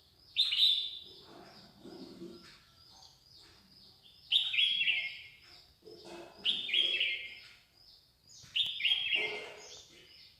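Garden songbirds calling: four loud, harsh, high calls of about a second each, spaced a few seconds apart, over a steady run of faint, rapid high chirps.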